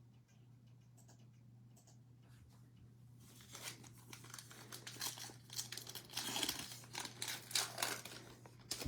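Cellophane wrapper of a trading-card cello pack being torn open and crinkled, starting about three seconds in, over a low steady hum.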